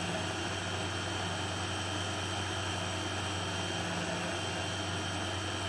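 Koolen electric mini chopper running at a steady pitch, its motor and blades grinding boiled chickpeas and sesame into a fine hummus paste.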